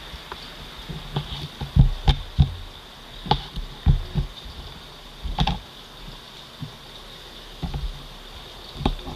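Kitchen knife chopping a knackwurst on a plastic cutting board: irregular knocks of the blade hitting the board, a quick run of them in the first five seconds and a couple more near the end.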